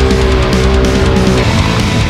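Loud heavy rock music with guitar.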